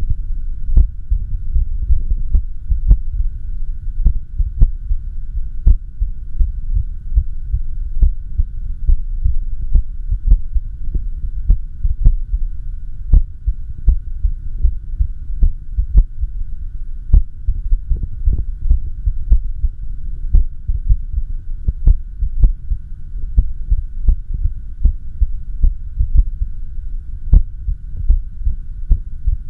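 Heart sounds of a heart in arrhythmia: low thudding beats with sharp clicks, coming at uneven intervals a little more than once a second, over a steady hum.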